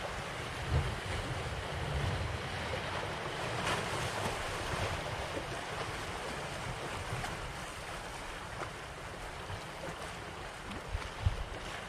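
Sea waves washing and splashing around concrete breakwater blocks, with wind buffeting the microphone. A short thump near the end.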